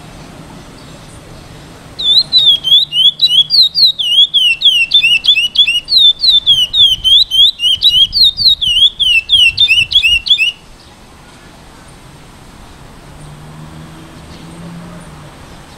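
Young male curió (chestnut-bellied seed finch), eight months old and just starting to sing, whistling a loud rapid phrase in the Praia Grande classic song style. It sings about three to four clear slurred notes a second, each sliding up and down, starting about two seconds in and cutting off sharply after about eight seconds.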